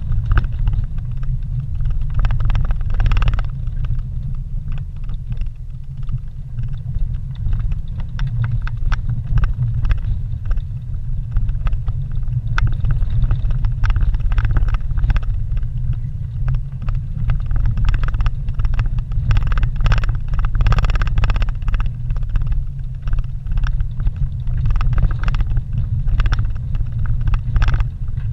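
Vehicle driving slowly over a rough dirt road, heard from inside the cabin: a steady low rumble of engine and tyres with frequent short rattles and knocks as it rides over the uneven surface.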